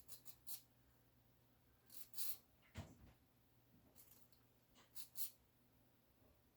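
Faint, short rasping strokes of a small square needle file across the base of a fiber-optic pistol front sight, slimming it to fit the slide's dovetail. They come in small groups a second or two apart, with a soft knock near the middle.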